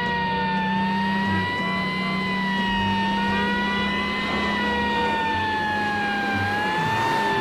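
Emergency vehicle siren wailing, its pitch slowly rising and falling about every two seconds, over a low steady hum.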